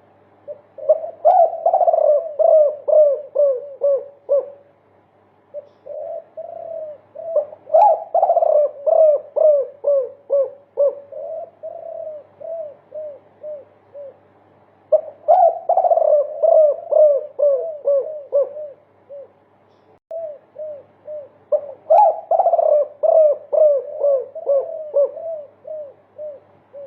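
Derkuku (spotted dove) cooing a multi-kuk song: four phrases of rapid repeated coos, a dozen or more notes each, the notes spacing out and dropping slightly in pitch toward the end of each phrase. There are short pauses between phrases.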